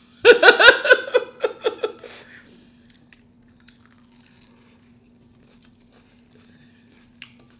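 Loud crunching of breaded crab balls being bitten and chewed close to the microphone: a quick run of crunches for about two seconds, then faint chewing.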